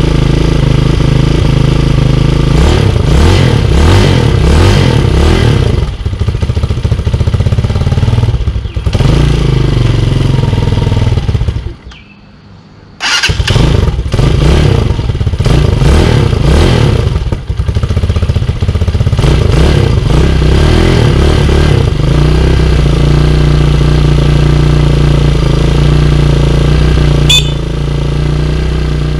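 Single-cylinder four-stroke engine of a 2021 Tao Tao TBR7 dirt bike, freshly started on choke, being revved again and again with the throttle. About twelve seconds in it cuts out for about a second, then runs again with more revving before settling to a steady idle; a short sharp chirp sounds near the end.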